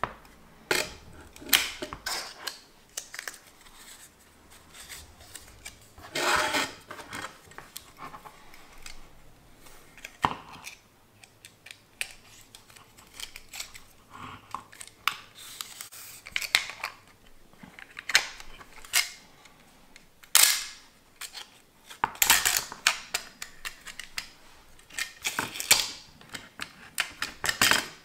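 Handling noise from loading 35mm film into an open Miranda/Soligor TM SLR: a scattered series of sharp clicks and knocks from the camera body and film canister, with several short rustles as the film tip is fed into the take-up spool.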